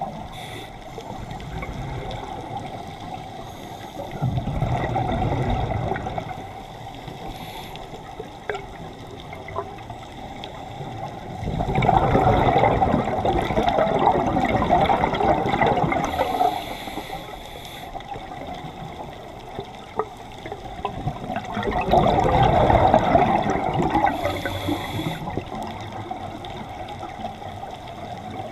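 Scuba diver's regulator breathing heard underwater: three bursts of exhaled bubbles rushing out, roughly ten seconds apart, with a short hiss of inhalation between them.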